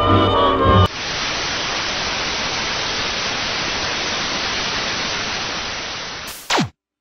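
Music cuts off about a second in, giving way to steady television static hiss. The hiss fades slightly and ends with a quick downward-sweeping tone, then stops dead.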